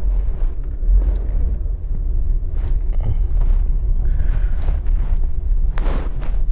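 Holden VE Commodore heard from inside the cabin on the move, a steady low rumble of engine and road noise with the throttle flat to the floor. The engine is in limp mode, so the car barely gains speed.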